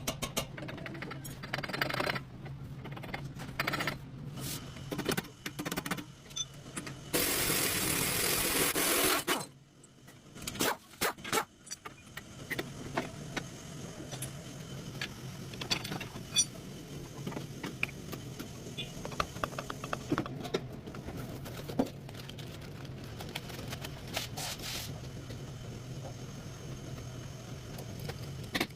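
Scattered metallic clicks, clinks and knocks from hand tools working on a car's front axle, over a steady low hum. About seven seconds in, a loud noisy burst lasts about two seconds.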